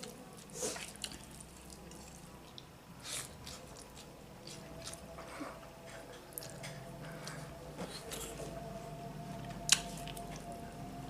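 Quiet wet clicks and squishes of someone eating cooked meat and chewing, at irregular intervals, with one sharper click about ten seconds in.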